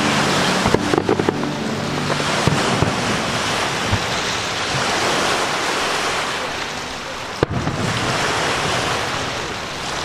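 Fireworks display: sharp bangs of bursting shells scattered through a dense, steady hissing rush, the sharpest bang about seven and a half seconds in.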